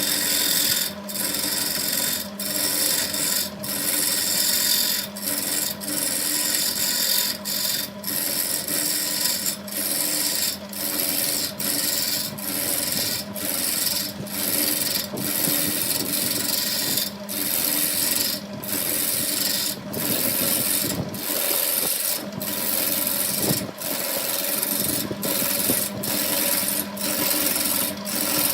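Wood lathe running with a steady hum while a tool rasps against the spinning wood in repeated passes, about one a second, each broken off by a short gap.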